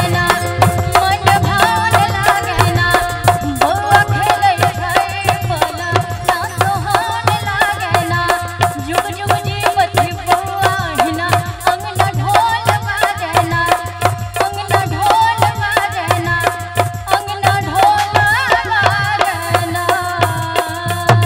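Live Maithili sohar folk music: tabla and dholak drum a quick, steady beat under a keyboard organ that holds one long note and carries the melody.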